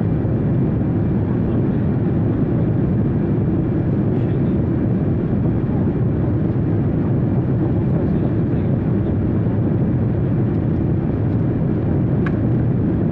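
Steady low drone of an airliner cabin in flight, engine and air noise with no change in pitch. A single faint click sounds about twelve seconds in.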